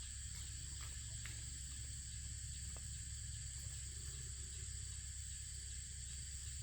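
Insects droning steadily in a high, unbroken pitch, over a low steady rumble and a few faint clicks.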